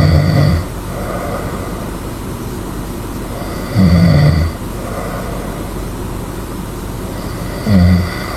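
A sleeping person snoring loudly: three low, rough snores about four seconds apart, each followed by a fainter breath, over a steady low hum.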